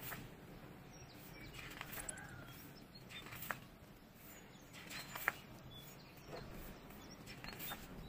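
Pages of a photobook being turned and smoothed by hand: faint, irregular paper rustles and slides, with two sharper paper flicks in the middle.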